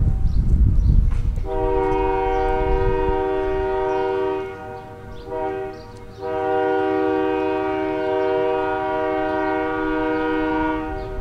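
Train air horn sounding a chord of several notes: one long blast, a short one, then another long one, the end of the long-long-short-long grade-crossing signal as the train approaches a road crossing. A low rumble comes before the first blast.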